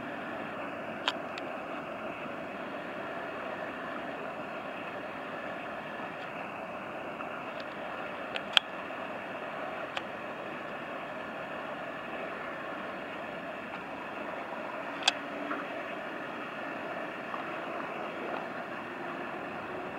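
Steady rushing noise of a passing inland tanker barge and its wash on the river. A few sharp clicks break through: one about a second in, a pair around the middle, and a louder one about three-quarters through.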